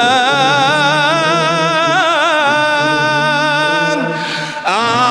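Male munshid singing an Egyptian ibtihal (Islamic devotional chant) without instruments: one long melismatic held note with wavering vibrato over a choir's steady low hum. Near the end the voice drops away briefly and starts a new phrase with an upward glide.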